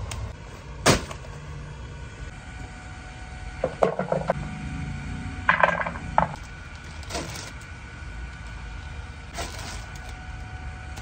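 Scattered knocks and clatters of plant pots and planters being picked up and set down on pavement, with a cluster about four seconds in and another about five and a half seconds in, over a steady low rumble.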